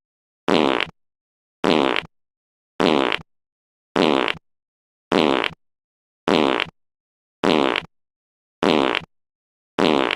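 One short fart sound repeated in a loop, nine times, a little over a second apart, with dead silence between. Each repeat is the same brief, buzzing burst.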